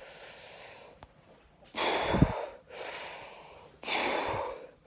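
A man breathing deeply in and out close to the microphone: about five long breaths, louder ones alternating with quieter ones. One breath hits the microphone with a brief low thump about two seconds in.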